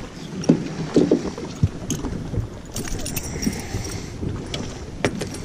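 Scattered knocks and bumps of handling on a fishing boat's deck as a small bass is landed, over a low wind rumble on the microphone.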